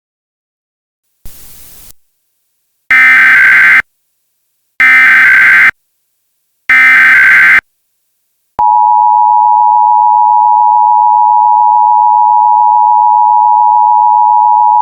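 Emergency Alert System tones. A brief burst of hiss comes first, then three identical bursts of high-pitched digital data tones, the SAME header, about two seconds apart. A little over halfway in, the loud, steady two-tone attention signal starts and holds.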